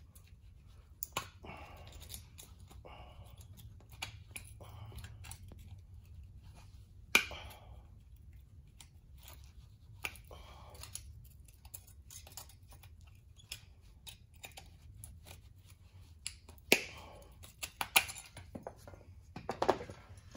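Sheet metal being cut and worked by hand: scattered clicks, snips and scrapes, with a few sharp metal knocks about a third of the way in, twice near the end and in a quick cluster at the very end, over a low steady hum.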